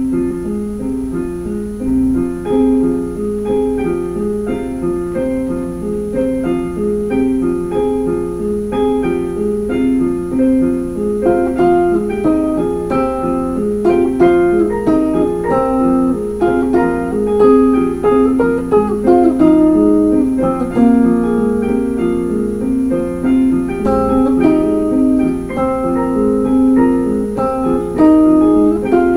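Instrumental background music: a steady stream of quick notes.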